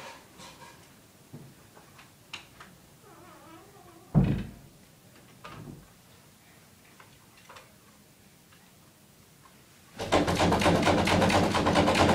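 Small knocks and clicks, then a single heavy thud about four seconds in. Near the end a loud, fast rattling buzz starts suddenly and runs on for a few seconds.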